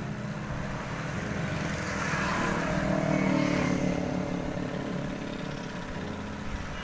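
Motorcycle engine running at cruising speed while riding along a road, with wind and road noise; the sound swells louder for a couple of seconds about three seconds in.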